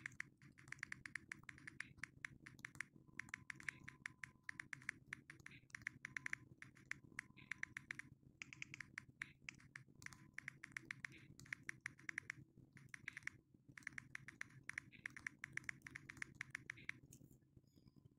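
Fast key clicks from typing on a smartphone's on-screen keyboard, in quick runs broken by short pauses, over a faint steady low hum; the clicking stops about a second before the end.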